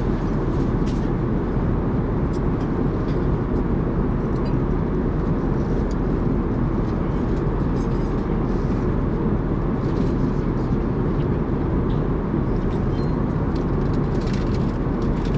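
Airbus A380 cabin noise: a steady low rush of engine and airflow, with a few faint small clicks now and then.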